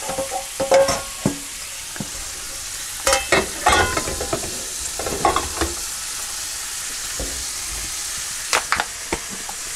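Pork belly and vegetables sizzling steadily in a stainless frying pan on a gas hob. Metal pans clatter and knock several times over this as a second frying pan is brought out and set down on the burner grate.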